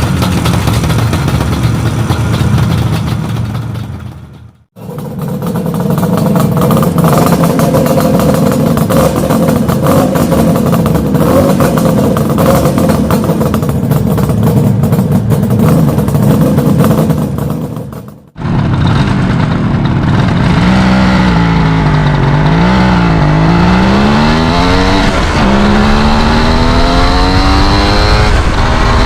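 Suzuki GT380 two-stroke three-cylinder engine running through its expansion-chamber exhausts, in three short cuts. The first two are a steady, busy exhaust note. In the last, the pitch falls and rises several times and then climbs steadily, as the engine revs up and down.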